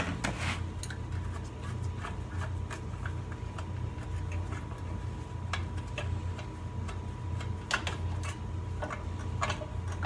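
Light, irregular clicks and taps from hands and tools working at the sheet-metal cover over the carburetor of a 10 HP Tecumseh snowblower engine, with a steady low hum underneath.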